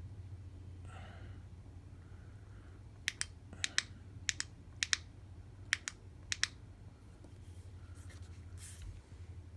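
Flashlight push-button switch clicked repeatedly: six quick double clicks (press and release) over about three and a half seconds, over a low steady hum, then a brief rustle of handling near the end.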